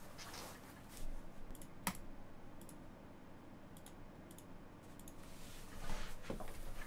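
A few faint, sharp clicks and taps, spaced irregularly, then a busier patch of tapping and rustling near the end.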